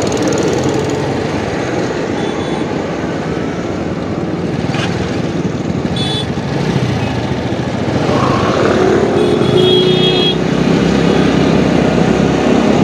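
Road traffic around a two-wheeler at a signal, picked up by a phone mic inside the rider's helmet: a steady rumble of motorbike, scooter and auto-rickshaw engines under a rush of noise. A few short high-pitched tones cut through, and it grows louder after about eight seconds as the traffic moves off.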